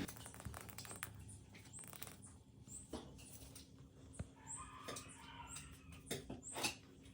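Cat eating: faint, irregular wet clicks and smacks of chewing. A brief, faint high-pitched call is heard about halfway through.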